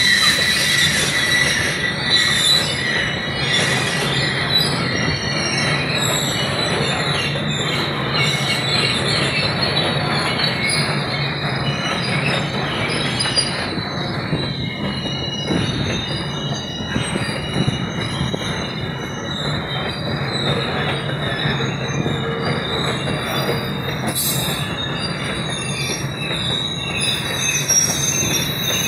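Freight wagons rolling past on a curve, their steel wheels squealing with a steady high-pitched tone over the continuous rumble of wheels on rail. The squeal comes from wheel flanges rubbing the rail through the curve.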